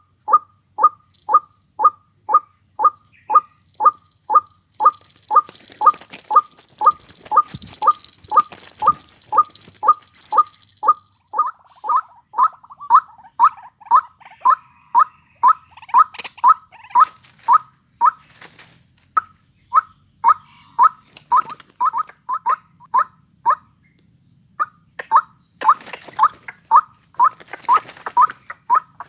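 White-breasted waterhen calling: a short note repeated about twice a second without a break. Insects shrill over it for several seconds in the first half.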